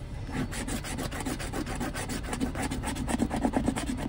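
A coin scraping the coating off a scratch-off lottery ticket, in rapid back-and-forth strokes.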